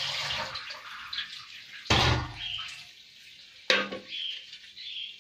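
Water running from a kitchen tap, fading away within the first second. Then a heavy thump about two seconds in and a sharp knock just before four seconds.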